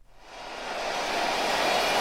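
A steady rushing noise fades in over about a second and a half, then holds steady, with no clear pitch or rhythm.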